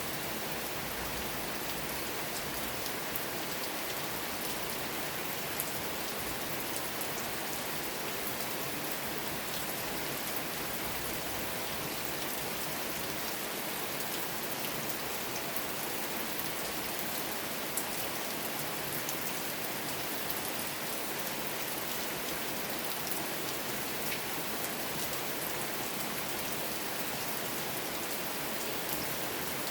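Steady, even rain falling, with a few single louder drop ticks standing out now and then.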